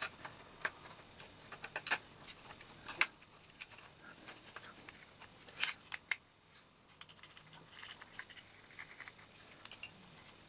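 Small, irregular plastic clicks and taps from the parts of a computer mouse being handled and fitted back together, with faint rustling between them; the sharpest clicks come about three seconds in and again around six seconds.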